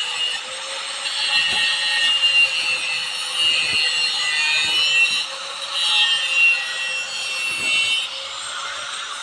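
Steel being shaped with an abrasive tool: a continuous rasping scrape that swells and eases, over a faint steady hum.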